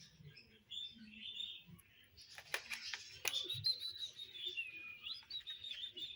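Kittens making thin, high-pitched squeaks as they eat. After a few short chirps, one long squeal is held for about three seconds and dips in pitch near the end, and two sharp clicks come midway.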